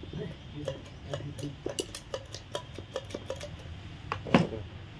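Irregular light metallic clicks and taps of a small hand tool against the cast-metal oil pump cover of an engine, with one louder knock about four seconds in.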